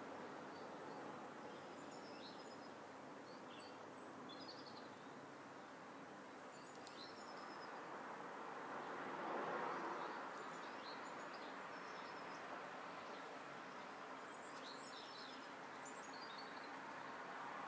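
Outdoor garden ambience: small birds chirping and calling in short, scattered bursts over a steady background noise, which swells briefly about halfway through.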